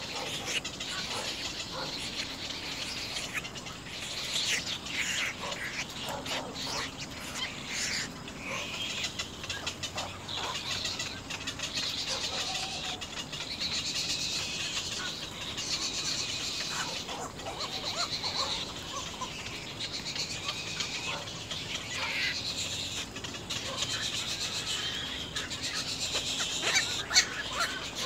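Little egret nestlings begging at the nest while being fed, a steady chatter of ticking clicks and short squeaky calls.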